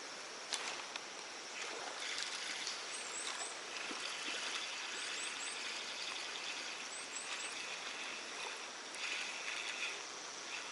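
Steady outdoor hiss with a few light clicks, and three times a quick run of three short, high rising chirps.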